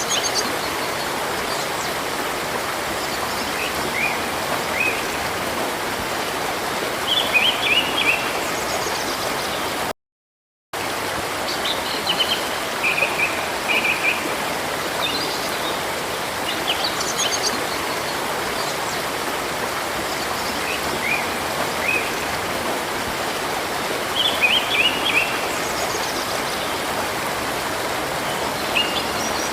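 Steady rush of flowing river water with small birds chirping over it in short, high calls every few seconds. The sound cuts out completely for under a second about a third of the way in.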